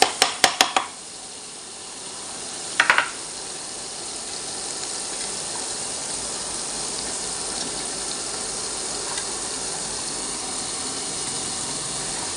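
Butter sizzling steadily as it melts in a hot frying pan. A metal spoon knocks against the pan four or five times in quick succession in the first second, and twice more about three seconds in.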